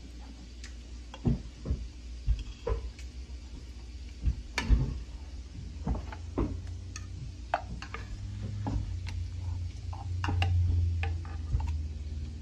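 A metal fork and spoon clink and scrape against a small nonstick saucepan and a plastic blender cup as boiled tomatillos and chiles are scooped across, giving scattered light clicks and knocks. A low hum swells for a few seconds in the second half.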